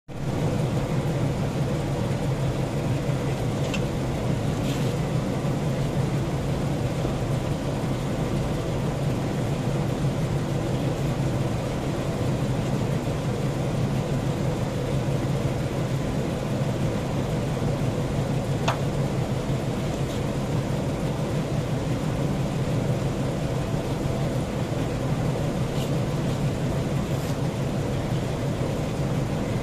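Steady low machine rumble, even in level throughout, with a few faint sharp clicks.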